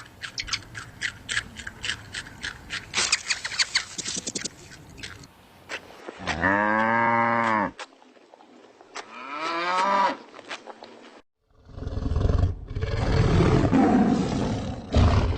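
A run of different animal sounds edited together. First a rapid series of sharp ticks, then a drawn-out call that bends up and back down, a shorter rising call, and from about twelve seconds in a loud, low, rough roaring.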